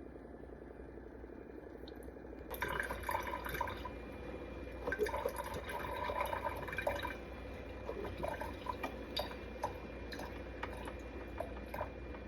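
Hamilton Beach FlexBrew single-serve coffee maker brewing: after a faint low hum, hot coffee starts streaming and dripping into the cup about two and a half seconds in, with irregular splashes and small ticks.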